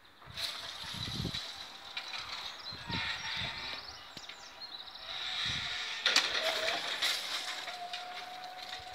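Railway level crossing closing: its warning signal sounds with a steady high tone while the red-and-white barrier booms lower, and a lower tone joins about six seconds in.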